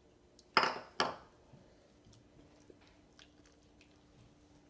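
Two short bursts of noise about half a second and a second in, then soft wet squishing and small clicks of rice being mixed with curry by hand on a plate.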